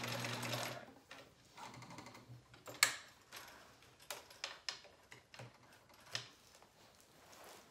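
Bernina sewing machine running a zigzag stitch back and forth, stopping about a second in, followed by a few sharp clicks and taps as the work is handled at the machine.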